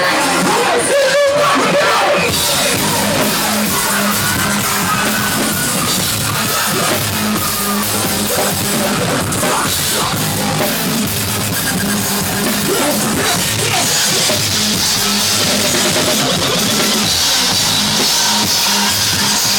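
Loud live concert music with a heavy rock drum-kit beat, and yelled vocals over it.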